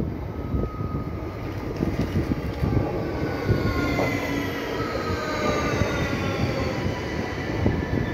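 An ÖBB Cityjet electric multiple unit pulls into the platform and slows, its wheels rumbling steadily. Over the rumble come several whining tones that swell from about a second in and slowly fall in pitch as the train decelerates.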